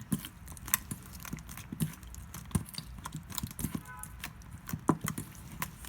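White-glue and borax slime being mixed and squeezed by hand: irregular wet squelches and sharp little clicking pops.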